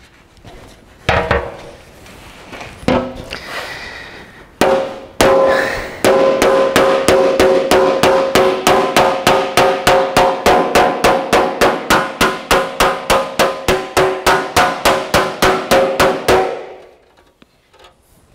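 Hand hammer striking a sheet-metal Austin-Healey rear guard panel on a sandbag to shape it. A few scattered blows come first, then an even run of about four strikes a second for roughly ten seconds, each with a brief metallic ring.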